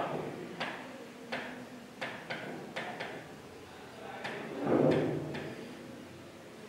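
Marker writing on a board: a string of short, sharp stroke and tap sounds as letters are drawn. A brief louder sound comes about five seconds in.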